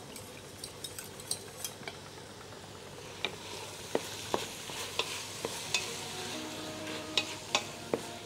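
Wooden spoon stirring hot creamy sauce in a stainless-steel pot on the hob, knocking against the pot about once or twice a second over a soft sizzling hiss that grows a few seconds in.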